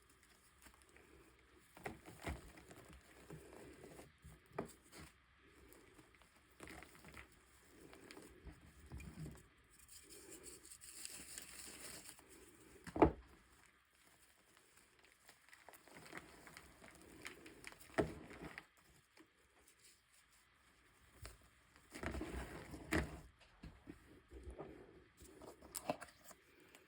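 Small handling noises: rustling, crinkling and scattered taps and clicks, with one sharp crack about thirteen seconds in and lighter knocks around eighteen and twenty-two seconds.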